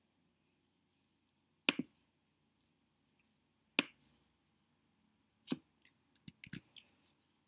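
Sharp clicks from a computer mouse and keyboard: three single clicks about two seconds apart, then a quick cluster of lighter clicks and key taps near the end, as a line of code is selected and copied.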